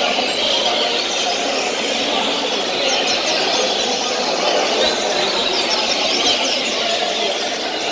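Many caged double-collared seedeaters (coleiros) singing at once, a dense overlapping chorus of high chirping phrases, with two clearer song phrases standing out about three and six seconds in.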